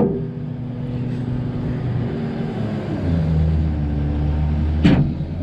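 Rollback tow truck's engine running steadily, its pitch stepping lower about three seconds in, with a sharp knock at the start and another near the end.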